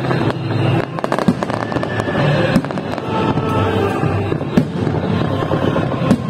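Aerial fireworks display: a steady run of bangs and crackles from bursting shells, with no pause.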